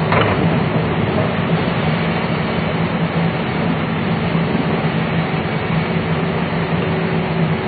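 A Liebherr crawler excavator's diesel engine runs steadily under load as the bucket digs into a pile of soil. There is a brief knock just after the start.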